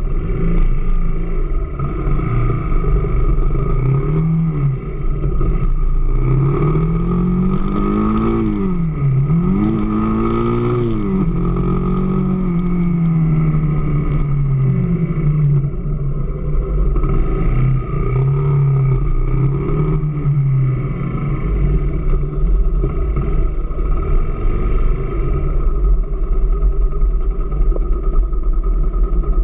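AKT DS 200 motorcycle's single-cylinder engine running and blipped up and down several times, then settling back to a steady idle in the last third. The owner puts it forward as a noise he takes for a fault.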